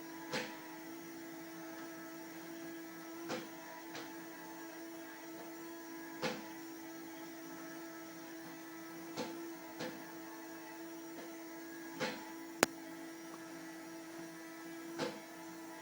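Small robot vacuum cleaner running with a steady motor hum, a short knock every few seconds, and one sharp click, the loudest sound, about three quarters of the way in.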